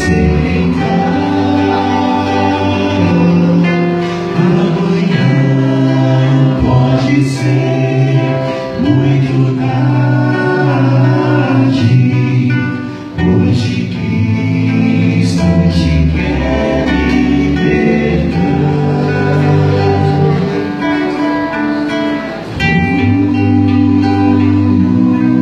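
Male vocal quartet singing a Christian song in several voices with acoustic guitar accompaniment, amplified through a church sound system, with short breaks between phrases.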